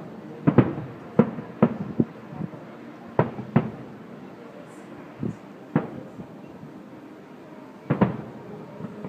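Aerial fireworks shells bursting: irregular sharp bangs, about ten in all, some in quick pairs, each with a short ringing tail, the loudest about eight seconds in.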